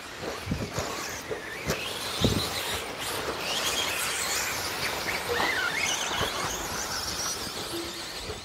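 Electric 1/10-scale 2wd stadium trucks racing past close by, their motors and drivetrains whining and wavering up and down in pitch as they speed up and slow down. A few dull thumps come in the first two or three seconds.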